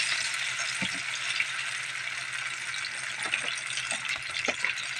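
Oarfish pieces sizzling steadily in hot oil in a frying pan, with a few short clicks scattered through.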